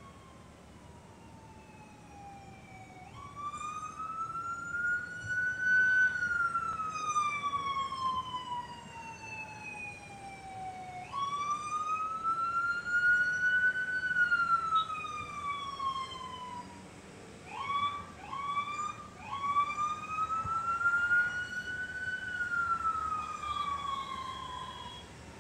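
Emergency vehicle siren wailing in slow cycles, each rising for about three seconds and falling for about five. A little past halfway it gives three quick short whoops before the wail resumes.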